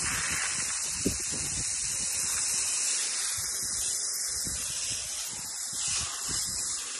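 Steady hiss of water spraying from a hose, with a brief knock about a second in.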